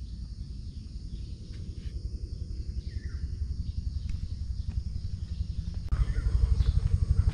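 Garden ambience: insects buzzing steadily at a high pitch, with one short falling bird call about three seconds in. Under it runs a low rumble on the microphone that grows louder about six seconds in.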